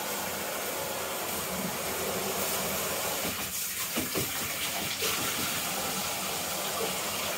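Handheld shower head spraying a steady stream of water over a wet Alaskan Malamute's thick coat in a bathtub, a constant hiss of spray and splashing, with a couple of faint knocks about halfway through.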